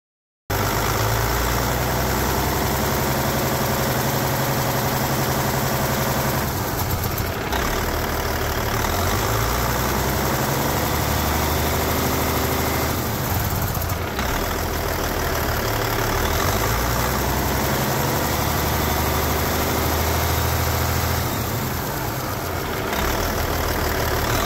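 Cat C15 ACERT diesel engine idling loudly and steadily with its valve covers off while its engine brake (Jake) is switched through low, medium and high; the sound shifts three times as the stages change. Only the low stage, the center brake, actually engages: the medium stage is not working, which the mechanic puts down to a rear brake solenoid with too much resistance.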